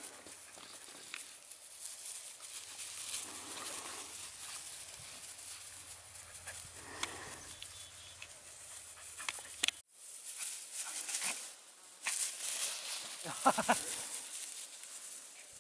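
Bordoodle puppies scampering and tussling in dry grass, with a steady rustle of paws and bodies, now and then crying out. The loudest cries are a short cluster of high puppy yelps near the end. The sound drops out for an instant about two-thirds of the way through.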